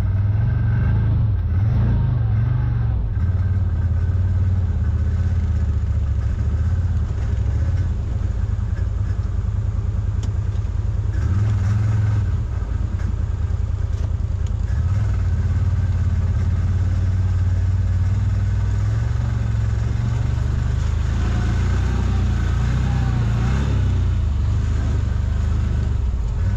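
CFMOTO ZForce 950 side-by-side's engine running steadily as it drives along a rough trail, with small rises and falls in throttle.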